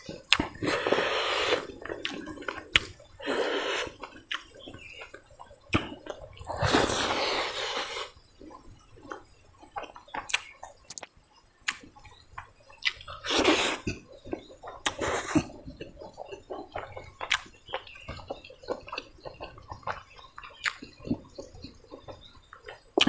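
Close-up eating sounds of a person eating curry and rice by hand: wet chewing and lip smacks, with several longer wet slurps.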